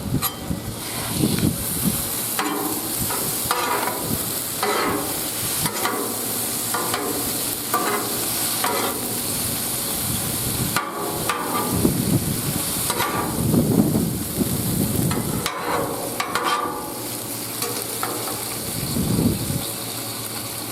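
Food sizzling on a hot Blackstone flat-top griddle while it is chopped and tossed together, with a steady frying hiss and repeated scraping strokes about once a second.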